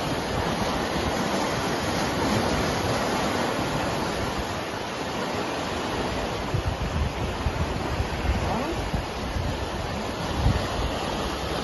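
Turbulent whitewater rushing and churning below aqueduct gates: a steady, even rush of water. Wind rumbles on the microphone in gusts during the second half.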